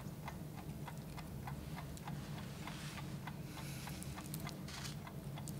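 Clock ticking steadily and quickly, about four to five ticks a second, over a low steady hum.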